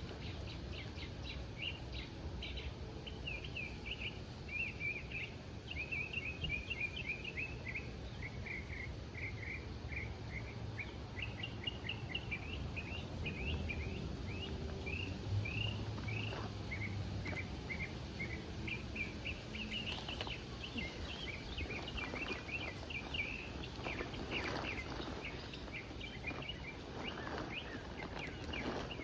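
Birds chirping continuously in quick short notes over a low background rumble, with a few brief rustles or clicks in the second half.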